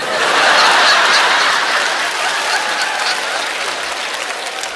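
Studio audience applauding and laughing in response to a joke. The applause starts suddenly, is loudest in the first second, and slowly dies down.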